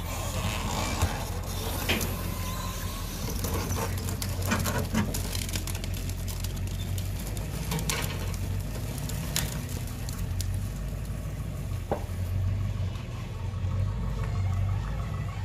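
A truck engine running at a low, steady idle, with scattered clicks and knocks as the old bread truck rolls slowly out of the yard onto the street.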